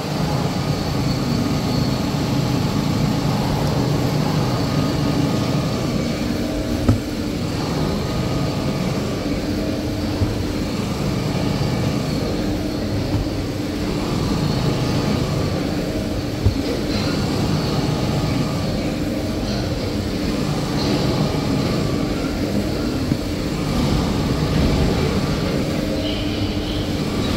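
Band saw paper-log cutting machine running steadily: a constant machine hum with one steady tone, and a few brief sharp knocks along the way.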